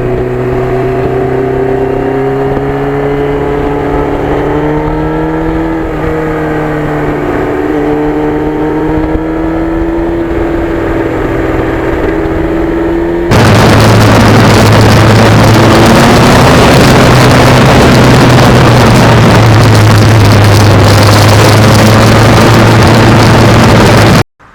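Yamaha FZR1000's inline-four engine running at a fairly steady pace, its note wavering slightly. About halfway through it becomes suddenly much louder, a dense rushing noise over a steady low engine note, and it cuts off just before the end.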